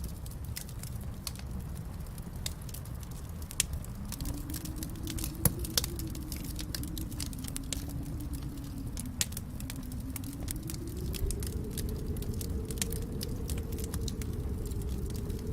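Fireplace fire crackling, with a steady low rumble under a dense run of sharp snaps and a few louder pops. About four seconds in, a low wavering tone joins in and drifts slowly up in pitch.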